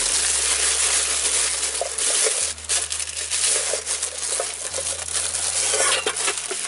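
Handling noise: steady rustling and crinkling, with scattered small clicks and clinks.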